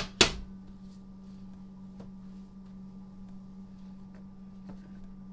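Glass loaf pan set down on a smooth-top electric stove: a sharp double knock with a short ring just after the start, then a few faint taps, over a steady low hum.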